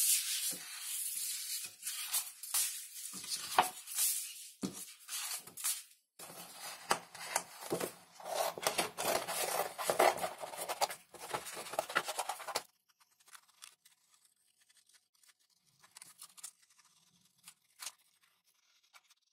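Sheets of heavy 250 gsm printed paper rustling and sliding as they are handled, then scissors cutting through the paper in a dense run of crisp snips. After about twelve seconds it drops to near silence with only a few faint snips.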